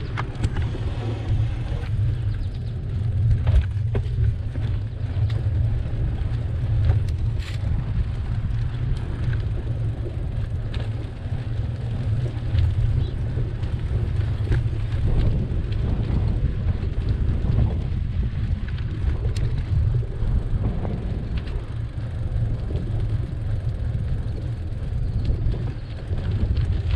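Bicycle riding along a cracked paved path, heard as a steady low rumble of wind and road noise on the camera's microphone, with a few light clicks.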